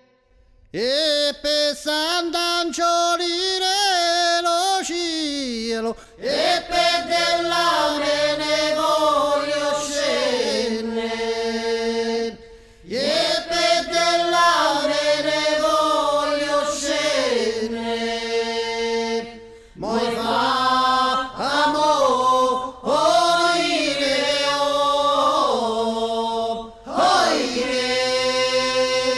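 Unaccompanied solo voice singing a Southern Italian folk song in dialect: long, ornamented held phrases of about six seconds each, each ending in a falling glide, with short breaths between them.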